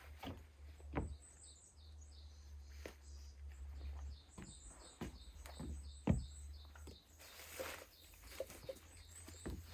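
A small bird singing rapid runs of short, high, falling chirps, faint. Several dull knocks come through between the runs.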